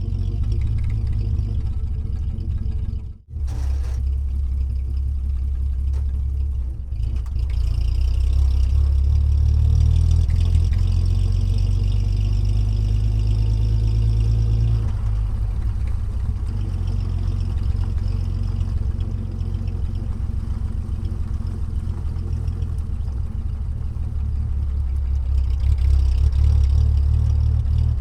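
An engine running steadily with a low hum, cut off briefly about three seconds in and then resuming.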